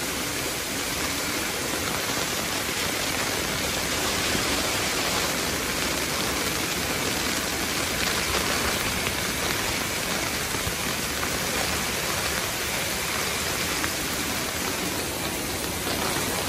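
Heavy monsoon rain falling steadily: a dense, even hiss of rain with no let-up.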